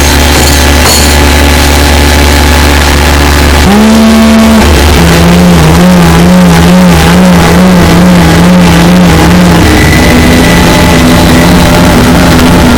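Harsh noise music: a loud, dense wall of distorted noise over a steady low drone. About four seconds in the texture shifts and a warbling, wavering tone comes in and changes pitch near the end.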